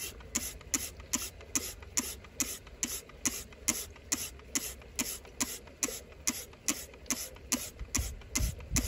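Hand pump bottle pumping water through a filler tube into a small live-steam locomotive's boiler: a steady rhythm of about four short clicks a second, one per pump stroke, as the boiler is filled to the top. A low rumble joins near the end.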